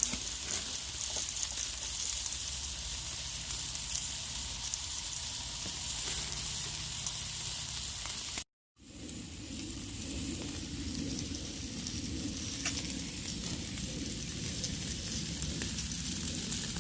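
Food sizzling steadily in a hot pan over a camp stove. The sound cuts out completely for a moment about halfway through, then carries on.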